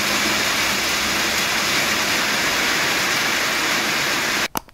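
Steady rain falling, an even hiss that cuts off abruptly near the end.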